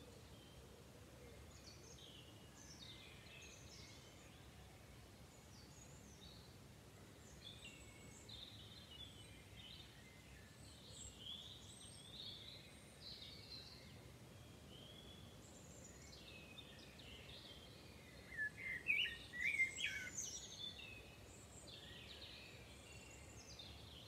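Songbirds singing in the dawn chorus, a string of short, varied, high phrases over faint steady background noise. The loudest burst of song comes about three-quarters of the way through.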